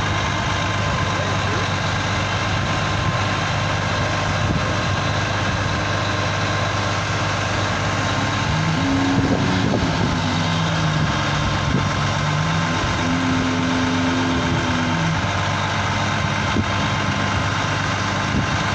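Crane truck's diesel engine running steadily to drive the hydraulic crane while it lowers a yacht, a constant hum with a deep steady note.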